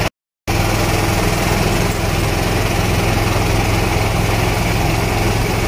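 Small boat's engine running steadily under way, with a constant low hum and a hiss of wind and water over it, after a short silent gap just at the start.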